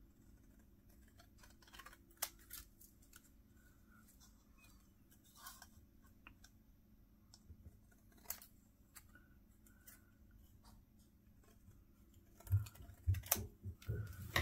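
Scissors cutting a stamped vellum label: quiet, scattered snips as the edge is trimmed. A few louder low thumps near the end.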